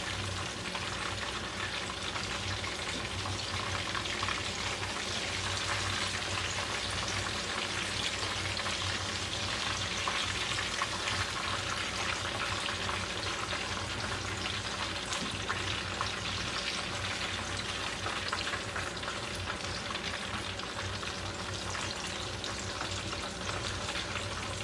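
Breaded chicken cutlets shallow-frying in hot vegetable oil: a steady sizzle with fine, irregular crackles throughout.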